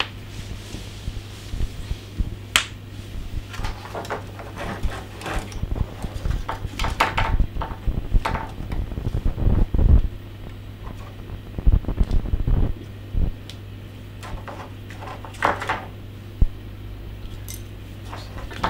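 Irregular clicks, knocks and rattles of hands working at a door's hinge and frame, over a steady low hum.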